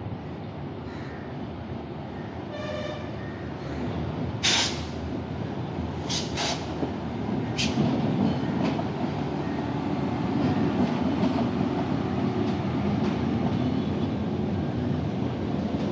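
Steady road and traffic rumble heard from a moving motorcycle on a city road. A short pitched tone, like a horn, sounds about three seconds in, and a few brief sharp noises come between about four and eight seconds in, the loudest at about four and a half seconds.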